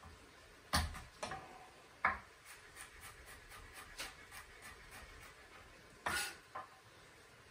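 Kitchen knife chopping garlic on a plastic cutting board: a few sharp knocks, then a run of lighter, even taps about three a second, and two more knocks near the end.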